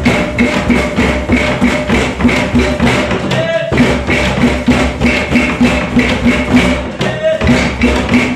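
Music with a fast, even percussive beat over held tones, pausing briefly every few seconds as the phrase repeats.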